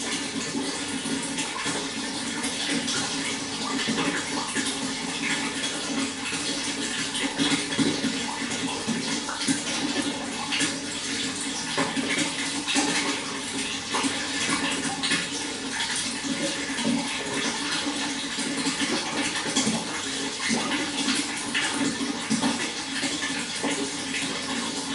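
Running water splashing and trickling steadily, a continuous rush dense with small splashes and no pauses.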